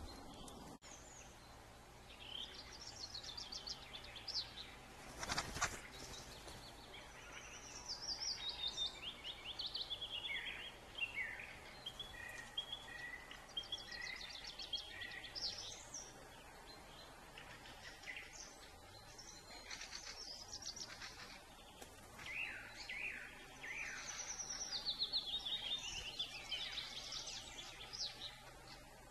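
Small birds chirping and singing: quick series of short, high notes and falling phrases, several voices overlapping. A brief dull thump comes about five seconds in.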